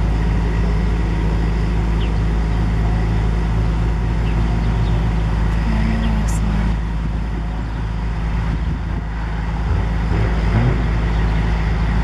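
A large engine running steadily with a low hum, easing slightly for a couple of seconds past the middle.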